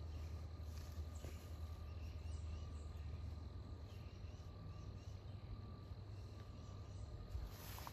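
Faint woodland ambience: a few short, faint bird chirps repeating over a low rumble that fades out about three and a half seconds in.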